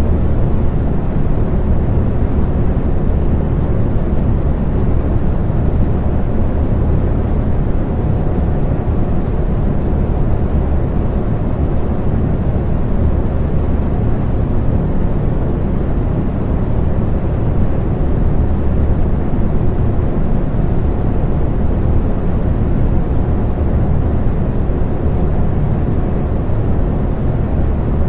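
Electric fan running steadily: an even, low whooshing noise with a faint steady hum, unchanging throughout.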